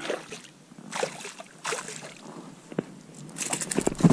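A hooked pike thrashing and splashing at the water's surface as it is reeled in beside an inflatable boat: a few separate splashes, then a denser burst of splashing with sharp knocks near the end.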